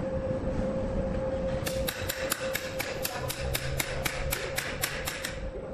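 A hammer strikes quickly and evenly, about five blows a second, starting just under two seconds in and lasting some three and a half seconds. A steady hum runs underneath.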